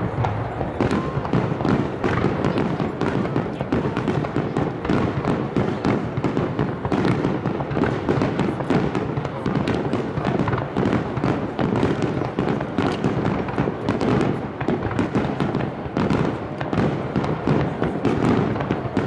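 Dense barrage of aerial fireworks: many shells bursting in rapid succession, a continuous mass of bangs and crackling with no pause.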